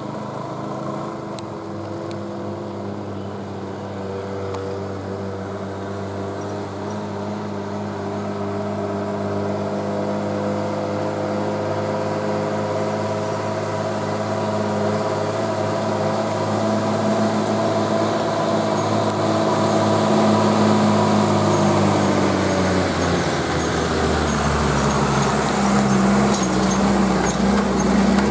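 Diesel engine of an old loaded goods truck pulling up a hairpin bend, its steady note growing louder as it approaches. Near the end it drops lower as the truck comes close and turns past.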